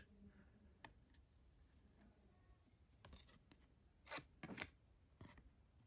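Faint, short rustles of trading cards being slid against one another by hand, a few strokes about three to five and a half seconds in.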